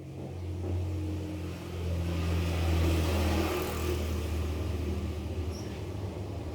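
A motor vehicle's engine rumbling past, swelling to its loudest about three seconds in and then slowly fading.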